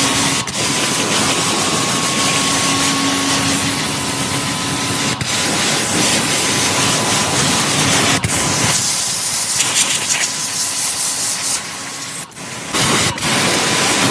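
Loud, steady hiss of a high-pressure spray, with a faint steady hum under it, cut off and resumed several times.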